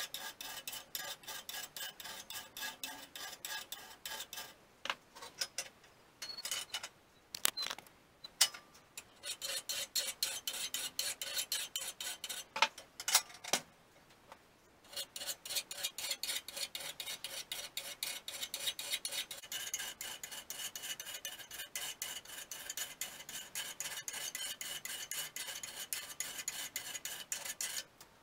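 Hand work on the steel of an axe head cut from a motorcycle brake disc: quick back-and-forth strokes, about four or five a second, with a faint metallic ring. In the middle the strokes break off and start again several times, with a few sharp knocks.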